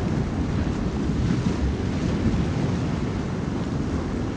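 Steady low rushing of ocean surf and wind, even and unbroken with no tune or clear single events.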